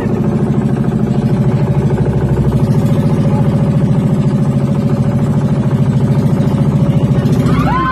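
Small motor bangka's engine running steadily with a fast, even putter while the boat is underway.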